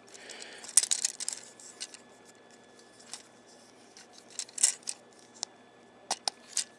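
Small plastic Transformers Scout figure (Hunt for the Decepticons Breacher) being transformed by hand: scattered clicks and rattles of its plastic parts being moved and snapped into place. The clicks bunch up about a second in and again near five seconds.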